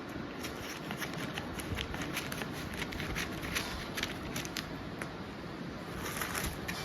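Packaging and parts of a parking sensor kit being handled by hand: steady rustling with many small irregular clicks and ticks.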